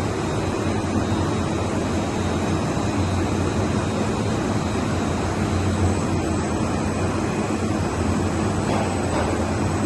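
Industrial machinery running steadily: a continuous mechanical noise with a low hum and faint steady high-pitched tones, without distinct knocks or changes, as from a laser cutting installation and its sheet loader in operation.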